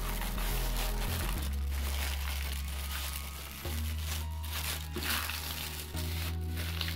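Paper crinkling and rustling as it is folded and pressed around a paratha roll by hand, over background music with low sustained notes.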